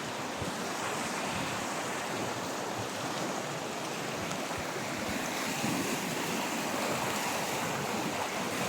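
River water rushing steadily over rocks, a constant even rush.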